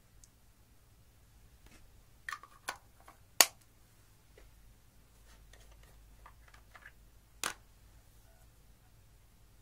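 A few sharp clicks and taps from plastic makeup containers and a scraping tool being handled over glass dishes, the loudest about three and a half seconds in and another about seven and a half seconds in, with fainter ticks between.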